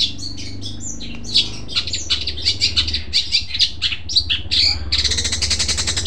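Caged long-tailed shrike (cendet) singing loud and piercing: a fast run of short, sharp chirping notes, closing near the end in about a second of harsh, buzzing rattle.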